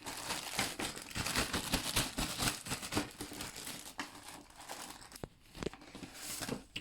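Packaging crinkling and tearing as a pack of toy craft-kit parts is opened by hand. The crinkling is dense for the first few seconds, then thins to scattered rustles and clicks.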